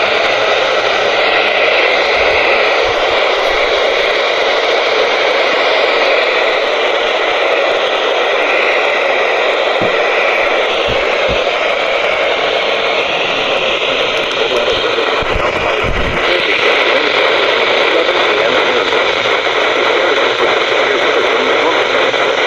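Steady hiss of FM radio static from a software-defined radio receiver tuned to the NOAA weather radio band, with no signal coming through.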